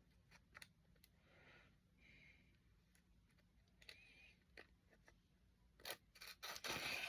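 Quiet handling noises: scattered faint clicks and light scraping as items and packaging are handled, with a brief louder rustle near the end.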